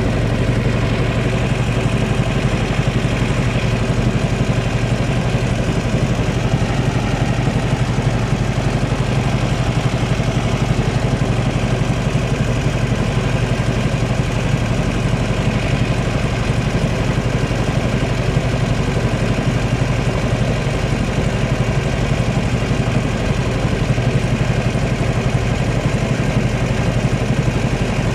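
Engine of a small tour boat running steadily while under way, a constant low hum that stays even throughout.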